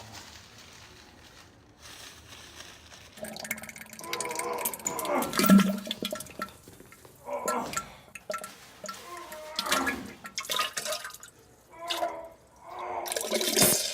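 A man groaning and straining in a series of drawn-out vocal sounds, with water splashing in a toilet. The groans start about three seconds in and are loudest a couple of seconds later. He sounds sick.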